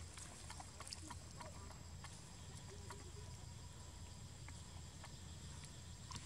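Faint outdoor background: a steady low rumble with scattered light clicks and ticks throughout.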